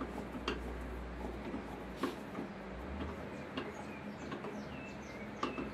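Bench drill table being cranked up its column: light irregular clicks and ticks from the crank and rack. Short high chirps, each dropping slightly in pitch and coming about every half second, join in during the last couple of seconds.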